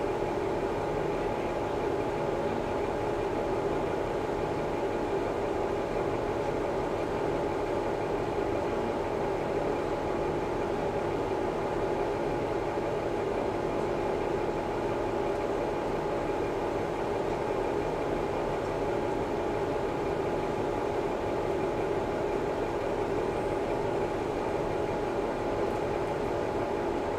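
KiHa 11 series 100 diesel railcar heard from inside the car, its diesel engine idling with a steady, even hum and no rail-joint clatter.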